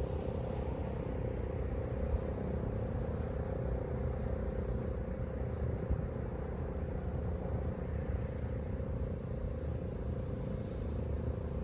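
Fedelcode Model 5 8-port outdoor warning siren sounding its full-alert tone, a steady pitch that holds throughout, with a low wind rumble on the microphone underneath.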